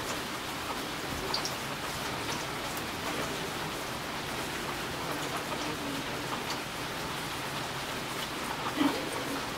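Steady rain falling, with individual drops ticking here and there against the hiss; a brief, louder low sound near the end.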